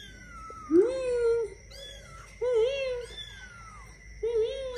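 Newborn kittens mewing: three loud, arched mews about every second and a half, with fainter, higher mews in between.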